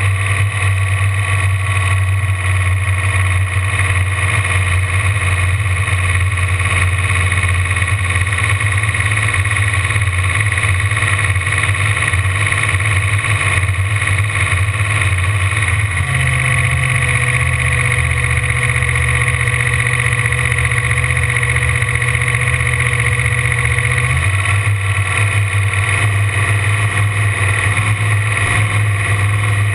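Ford engine of a V-drive inboard boat running steadily. About halfway through, the engine note steps up in pitch and is held for around eight seconds, then drops back.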